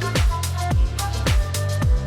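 Electronic background music with a steady beat: a thumping kick drum about twice a second over a sustained bass line and short synth notes.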